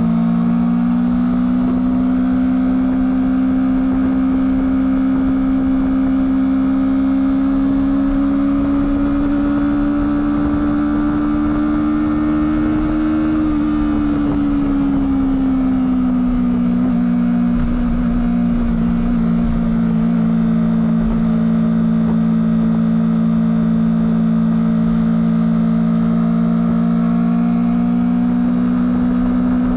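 Honda CBR250RR motorcycle engine with its stock exhaust, running steadily under way. The note climbs slowly in pitch until a little under halfway through, drops over a couple of seconds, then holds steady again.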